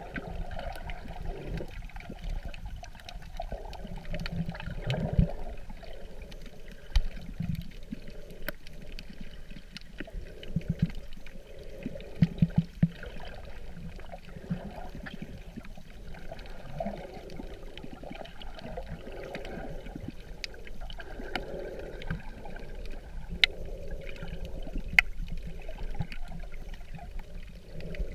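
Muffled underwater sound of water swishing and sloshing around a submerged camera, swelling every second or two, with scattered sharp clicks, a quick cluster of them about twelve seconds in.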